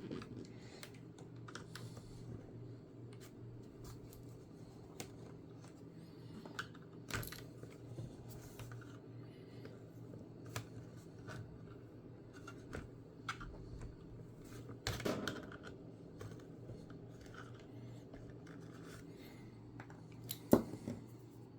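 Screwdriver working small screws out of a laptop's plastic base: faint scattered clicks and scrapes, with a louder clatter about fifteen seconds in and a sharp click near the end, over a steady low hum.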